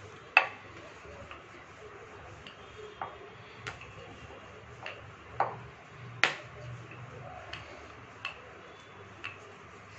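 Irregular sharp clicks and knocks, about ten in all, from a rolling pin working chapati dough on a rolling board.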